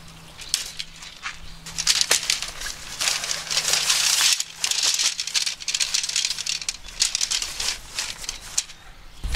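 Tent fabric rustling and crinkling as it is handled and folded, in irregular bursts with small crackling clicks, starting about two seconds in.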